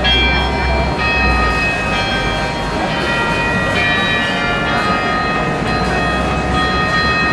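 Tram approaching along its track: several steady high tones sounding together, shifting in pitch every second or so, over a steady low rumble.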